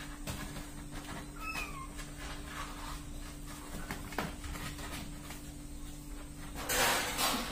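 Kittens about four weeks old mewing with a couple of short, high, falling mews, then a burst of rustling near the end.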